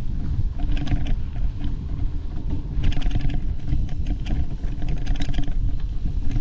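Riding noise from a bicycle on a dirt singletrack trail: wind rumbling on the camera's microphone, with the bike rattling over bumps in clusters about one, three and five seconds in.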